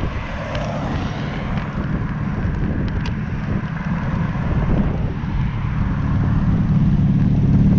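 Wind rushing over a handlebar-mounted microphone while riding a bicycle beside a busy road, with cars passing and a few light clicks in the first few seconds. A low engine hum grows louder near the end.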